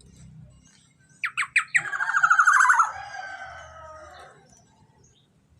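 Young black-naped oriole calling: three quick down-slurred notes, then a loud, harsh, rapid rattling call that fades away.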